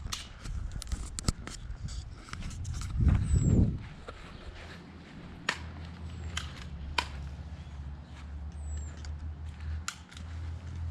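Airsoft guns firing a few scattered single shots, heard as sharp snaps, over a steady low rumble of wind on the microphone, with a louder rustle about three seconds in.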